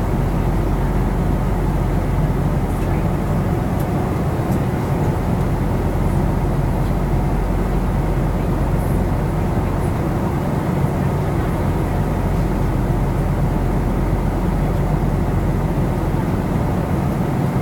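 Airliner cabin noise in flight: a steady low drone of jet engines and rushing air, even and unchanging.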